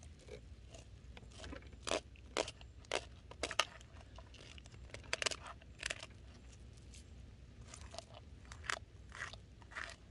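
Knife slicing a crappie fillet off along the backbone, crunching through the small rib bones in a string of short, irregular crunches.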